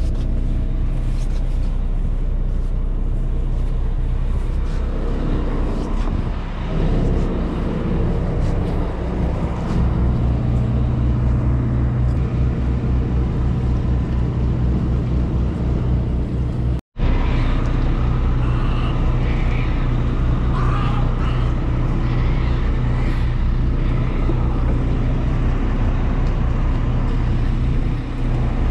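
A sportfishing boat's engines running in a steady low drone heard on deck, with a brief break about two-thirds of the way through.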